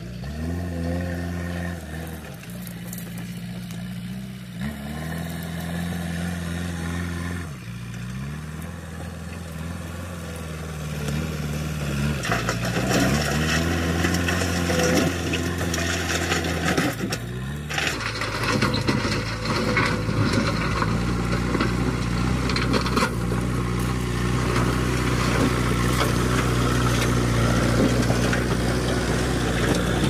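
JCB 3DX backhoe loader's diesel engine running under load, its pitch dropping and climbing back several times, then holding steadier and louder in the second half. Stones scrape and crunch under the loader bucket and tyres.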